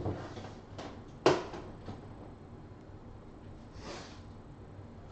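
A sharp knock on the microphone about a second in as it is bumped, with a softer rustle of handling a few seconds later.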